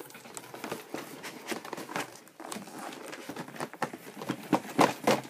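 Cardboard packaging being handled as a boxed speaker set slides out of its outer shipping box: irregular scraping, rustling and light knocks of card on card, with the sharpest knocks near the end.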